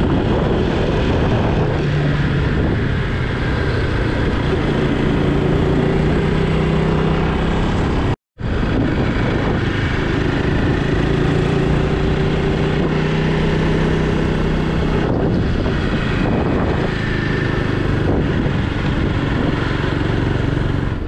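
Motorcycle engine running steadily on the move, with wind noise rushing over the microphone. The sound cuts out for a moment about eight seconds in.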